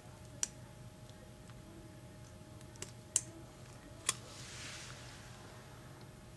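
Scissors snipping at the thick end wire of a small pen spring: four sharp metallic clicks as the blades close, with a soft rustle of handling after the last one. The scissors are struggling with the wire, and stronger scissors are needed.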